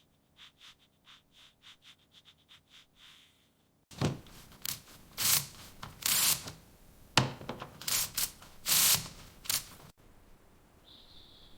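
Rhythmic hand sanding strokes, faint and quick at first, then louder and longer from about four seconds in, stopping near the end.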